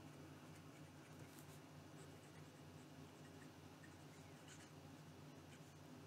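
Medium-nib fountain pen writing cursive on paper, a faint light scratching of the nib with each stroke. It runs smooth, with some feedback and a little bit of a squeak.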